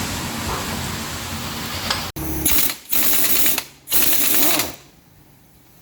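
A rattling mechanical power tool in a workshop. It runs steadily for about two seconds, then runs in three short bursts of about half a second each, and stops near the end.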